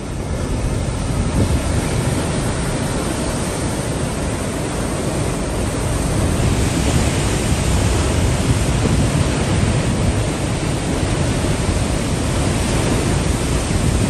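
Heavy surf, whipped up by typhoon winds, crashing and washing over a concrete tetrapod breakwater in a continuous rushing roar, with wind buffeting the microphone.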